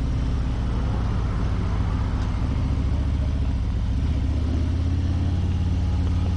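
Harley-Davidson Milwaukee-Eight V-twin engine idling steadily, the loping 'potato potato' beat that the rider points out. The note shifts slightly about four seconds in.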